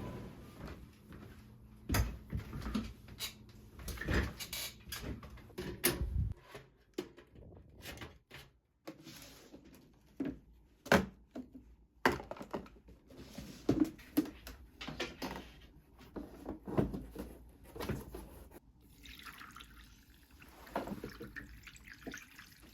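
Objects being handled and set down: scattered short clicks and knocks at irregular intervals, with quiet gaps between them.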